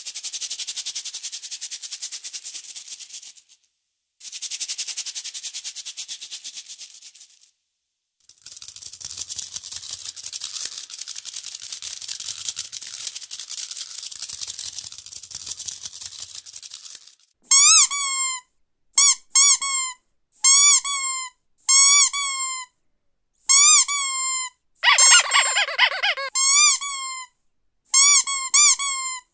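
A high, rapid rattling hiss in three long stretches, then a rubber squeaky dog toy squeezed over and over, short rising-and-falling squeaks about once a second, some in quick pairs, with one longer, harsher squeak near the end.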